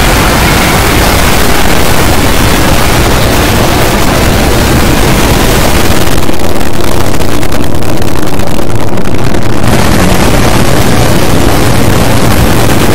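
A loud, dense wall of sound from many video soundtracks overlaid and playing at once, blurred into a continuous noisy roar where no single sound stands out. The hiss at the top thins for a few seconds in the middle.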